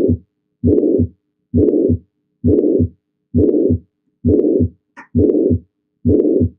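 Recorded heart sounds of mitral regurgitation: a blowing, higher-pitched pansystolic murmur that starts right after S1 and lasts until S2, repeating with each beat at roughly 65 to 70 beats a minute, with no S3. A brief faint click sounds about five seconds in.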